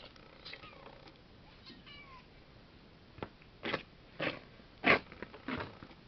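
A cat meowing faintly a few times, then four heavy footsteps on dirt and debris close by, about half a second apart.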